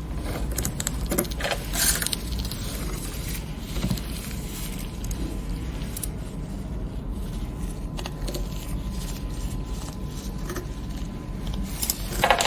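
Scattered clicks and knocks of equipment being handled over a steady low hum, with the loudest knocks about two seconds in and just before the end.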